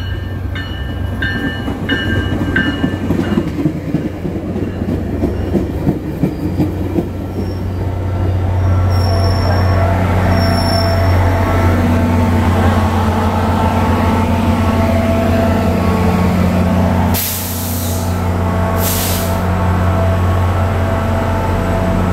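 Bi-level diesel commuter train pulling into the platform and stopping: a bell rings in even strokes for the first few seconds, then a steady low engine hum runs under squealing wheels and brakes. Near the end come two short loud hisses of air.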